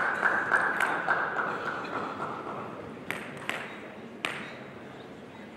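Table tennis ball strikes: a few sharp, separate clicks of the ball on bat and table, with a high ringing tone that slowly falls and fades over the first two seconds or so.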